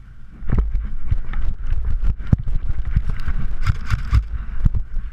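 Quick, uneven running footsteps thudding, with sharp clicks and knocks, starting about half a second in.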